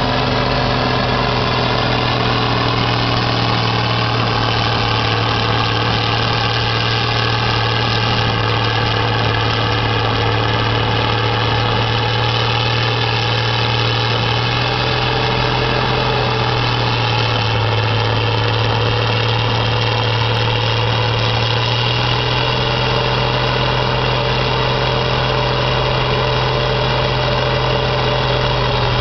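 Vohl snowblower's big Allis-Chalmers diesel engine running steadily under load while blowing snow: a deep, even drone whose pitch drops slightly for a few seconds past the middle, then returns.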